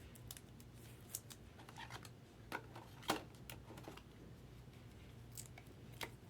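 Trading cards and plastic card holders being handled: a few light, scattered clicks and rustles, the sharpest about three seconds in, over a faint low hum.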